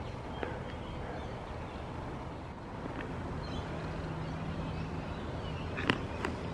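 Outdoor ambience: a steady low rumble of distant traffic, with a faint hum rising out of it for a couple of seconds in the middle, a few faint bird chirps, and two sharp clicks near the end.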